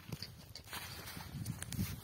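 Goat's hooves stepping and scuffing on the ground: irregular low knocks with a few sharp clicks.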